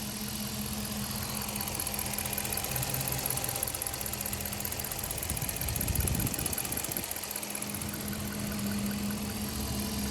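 A 2014 Jeep Grand Cherokee's 5.7 Hemi V8 running at idle with a repetitive knock or tick. The owner could not say whether it is the lifters, piston slap, rod knock or loose exhaust manifold bolts. A brief low rush comes about six seconds in.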